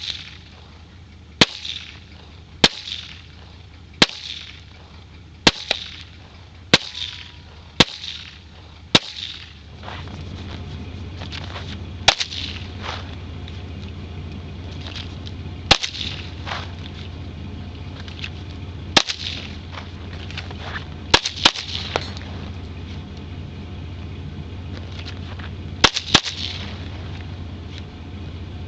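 Handgun shots at outdoor target practice. A string of about eight sharp shots comes roughly a second apart, then slower single shots and a few quick doubles and triples, each with a short echo. A steady low rumble runs under the later shots.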